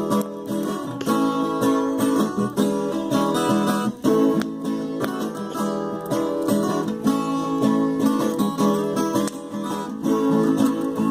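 Viola caipira, the Brazilian ten-string folk guitar, strummed and plucked in a cateretê rhythm as an instrumental break, without singing.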